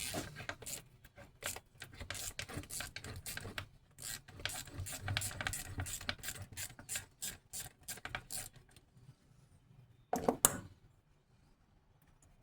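Ratchet wrench clicking rapidly as the 10 mm bolts holding the solenoid to a starter are turned out, stopping after about eight seconds; a single louder metal clank follows a little after ten seconds.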